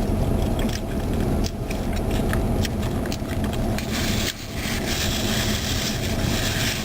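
Car engine running steadily, heard from inside the cabin, with scattered short clicks and scrapes over it.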